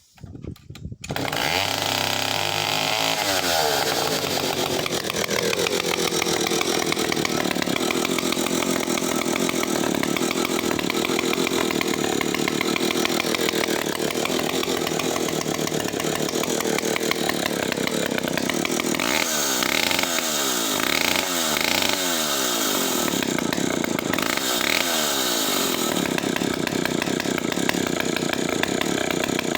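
Partner R11 90cc two-stroke chainsaw engine catching about a second in on a stone-cold start and running. The revs start high and drop over the next few seconds to a steady run. Around two-thirds of the way through, the throttle is blipped several times, the revs rising and falling.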